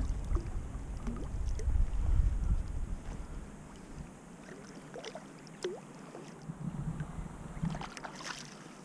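Wind rumbling on the microphone, easing off about four seconds in. After that come light water sounds and scattered small splashes and knocks beside a kayak, as a hooked kingfish is drawn alongside and netted.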